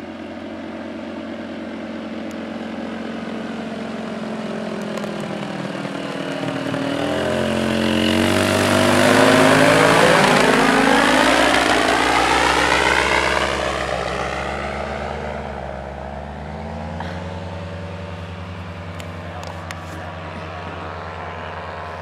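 Engine and propeller of a powered paraglider trike droning as it flies low overhead. It grows louder to a peak about ten seconds in, then drops in pitch as it passes and fades away.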